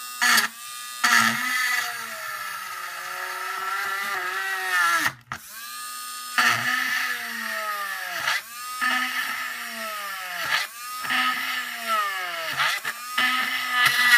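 Small corded electric rotary tool whining as it drills a row of holes through a hard plastic car body shell. Its pitch sags each time the bit bites into the plastic and climbs back as it frees, with a brief stop about five seconds in.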